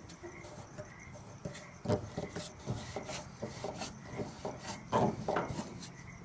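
A tube expander being turned by hand inside a dented metal inlet tube, making irregular rubbing and scraping as it pushes the dents out. A few louder scrapes come about two seconds in and again near five seconds.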